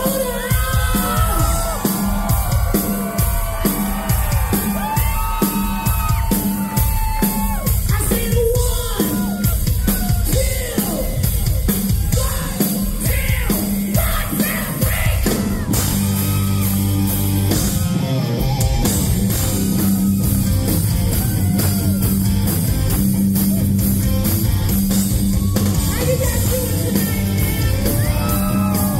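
Live hard rock band playing loud: high yelled and sung vocals over pounding drums, then about halfway through the band settles into sustained heavy distorted guitar and bass chords.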